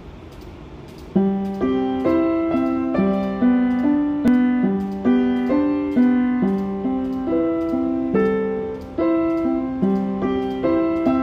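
Keyboard playing a slow single-note melody in a piano sound, about two notes a second, starting about a second in. Each note starts sharply and fades.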